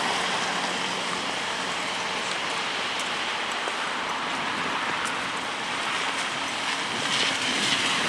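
Steady hiss of a wet city street: car tyres running on rain-soaked asphalt.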